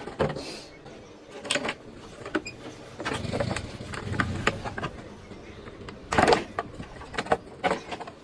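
Irregular clicks and knocks of tools and plastic scooter body panels being handled during a body panel change, the loudest knock about six seconds in.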